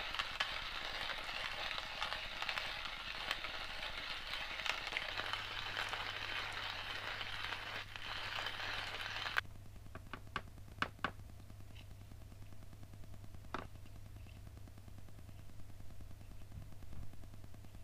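Hand-cranked stainless-steel coffee grinder grinding beans: a steady crunchy crackle that stops abruptly about nine seconds in. It is followed by a few light metallic clinks, like a spoon on a metal cup, over a faint low hum.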